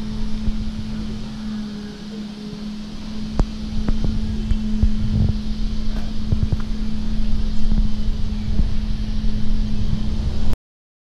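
Wind buffeting the microphone with a rough low rumble, over a steady low hum and a few faint clicks. The rumble grows louder a few seconds in, and all sound cuts off suddenly near the end.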